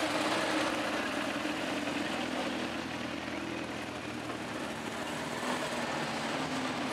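Classic sports car engines running at low revs as the cars creep past, a steady engine note that eases slightly.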